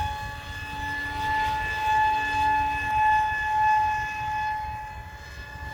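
Electric motor and pusher propeller of a 3D-printed RC F-22 jet whining at a steady, high pitch in flight, its volume swelling and fading several times as the plane passes back and forth. A low wind rumble on the microphone underneath.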